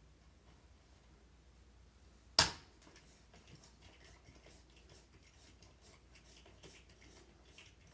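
One sharp knock about two and a half seconds in, followed by faint, scattered clicks and taps of small hard parts and tools being handled.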